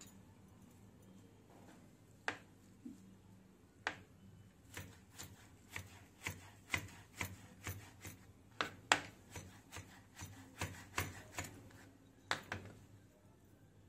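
Kitchen knife chopping fresh mint leaves on a cutting board: sharp taps of the blade striking the board. A few taps come spaced out at first, then a quicker, irregular run of about two a second, which stops shortly before the end.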